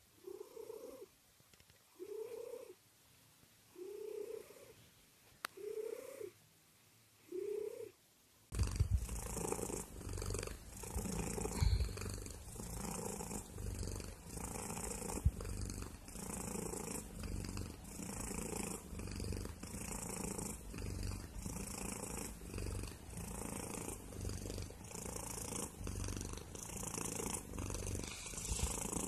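Domestic tabby cat purring softly while asleep, in short separate bursts about every two seconds. About eight seconds in, a louder, closer and continuous purr takes over from a tabby cat being scratched under the chin.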